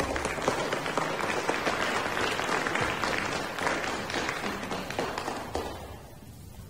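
Audience applauding, dying away about five and a half seconds in.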